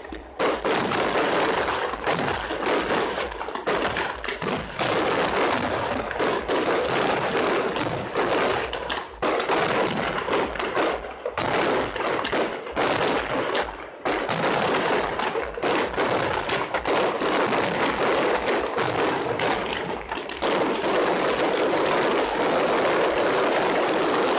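Fireworks display going off: rapid, overlapping bangs and crackling in a continuous barrage, turning into a dense, even crackle in the last few seconds.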